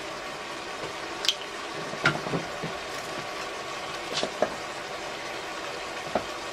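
Onions and macaroni sizzling in a cast-iron Dutch oven over a gas burner: a steady hiss with a handful of sharp pops and clicks.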